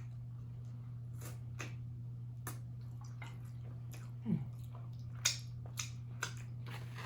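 Wet smacking and clicking of a person eating and licking his fingers at close range: a string of separate sharp smacks, the loudest about four and five seconds in, over a steady low hum.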